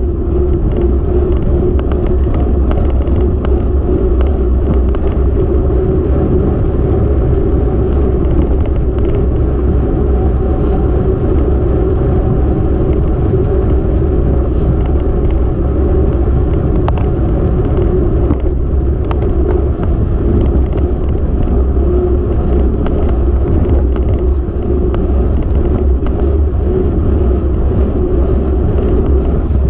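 Steady, loud wind and road rush on the microphone of a camera travelling along an asphalt road.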